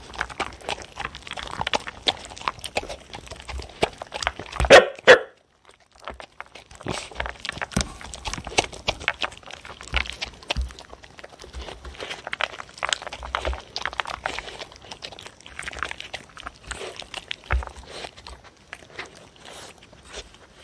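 Two dogs eating from a plastic tray: steady chewing and crunching of kibble with small clicks of teeth and muzzles against the tray. About five seconds in, one short, loud sound from a dog stands out above the eating.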